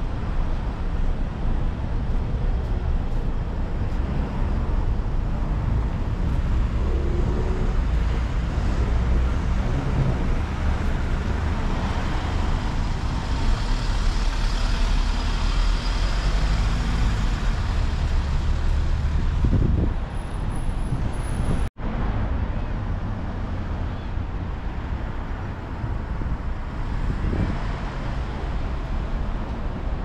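Road traffic: a steady noise of passing cars and buses, engines and tyres, with the sound cutting out for an instant about two-thirds of the way through.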